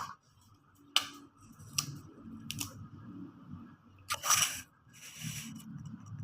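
Three sharp clicks about a second apart, then a short rustle or tear about four seconds in and a fainter one a second later, over low handling noise.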